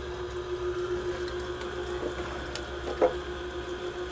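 Breville Big Squeeze masticating slow juicer running, its motor and auger giving a steady low hum as it presses the produce, with a short louder noise about three seconds in.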